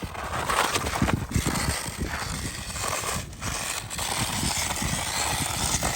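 A micro-scale electric RC rock-crawler truck driving over a loose dirt forest road, its small tyres scrabbling and spinning in the dirt as it digs ruts. The sound is a rough, uneven scratching with a brief drop-out about three seconds in.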